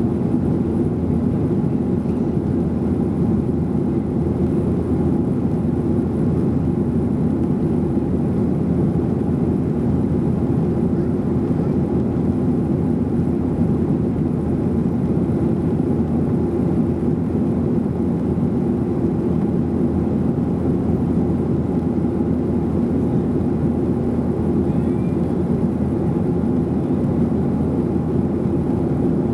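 Steady cabin drone of a Boeing 737-800 in flight, heard from a rear window seat: its CFM56-7B turbofan engines and the airflow over the fuselage make a constant low rumble with a faint steady hum, unchanging throughout.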